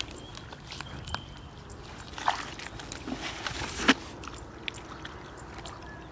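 Splashing and squelching in shallow muddy water, with scattered small clicks; the two loudest splashes come about two and four seconds in.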